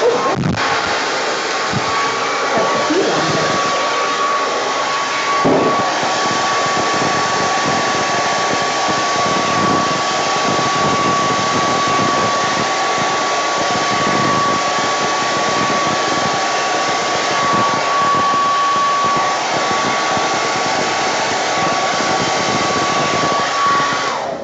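Hair dryer running steadily with a thin whine over its airflow, blowing wet acrylic pour paint across a canvas, on its heat setting by mistake. It switches off just before the end.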